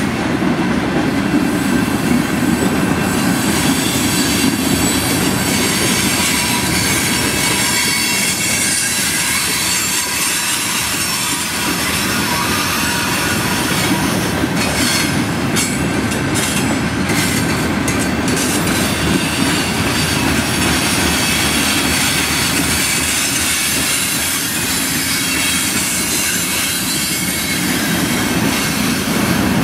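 Freight cars of a mixed freight train rolling past at steady speed: a continuous rumble of steel wheels on rail with a thin high squeal from the wheels.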